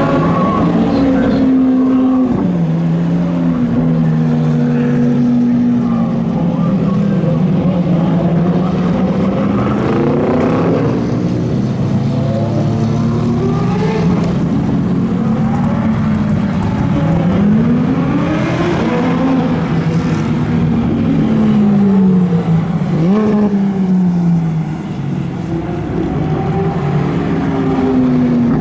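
Supercar engines, Lamborghini Aventadors among them, passing one after another at low speed. Each engine note rises and falls as the car revs and goes by, with one sharp rev about 23 seconds in.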